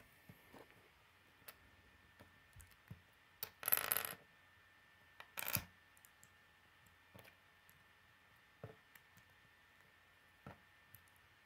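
Plastic Lego bricks being handled and snapped together on a wooden tabletop: faint scattered small clicks and taps, with a louder half-second burst of noise about four seconds in.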